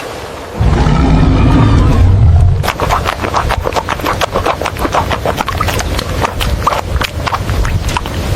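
An elephant's deep rumbling roar lasting about two seconds, followed by a quick, irregular run of sharp knocks and clatters.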